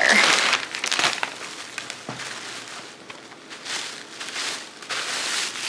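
Clear plastic mailer bag crinkling as a sweatshirt is pulled out of it, loudest in the first second, then softer rustling as the sweatshirt is handled.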